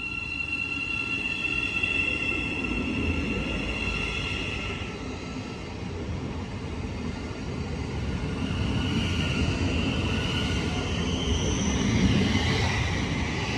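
Class 717 electric multiple unit running along the platform: wheels rumbling on the rails, with a high steady whine that fades after about five seconds. Another high squeal comes in over the last few seconds as the cars pass close by.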